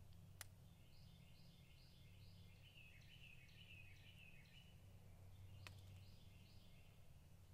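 Faint birdsong: a bird repeats a short, high two-part note in a quick series, pauses, then starts again near the end, over a steady low hum. Two sharp clicks sound, one just after the start and one about two-thirds of the way through.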